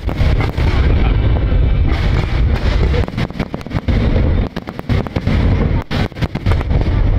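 Aerial fireworks shells bursting in rapid, overlapping succession. Deep booms and sharp cracks follow one another over a continuous low rumble, with brief lulls about halfway through and again about six seconds in.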